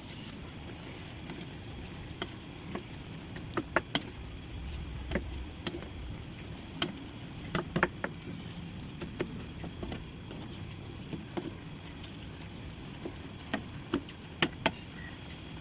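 Vegetables and shrimp cooking in a pan: a steady simmering noise with irregular sharp clinks of a cooking utensil against the pan.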